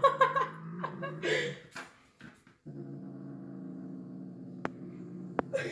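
A dog vocalizing: high, wavering whines, then after a short break a long, steady, low growl.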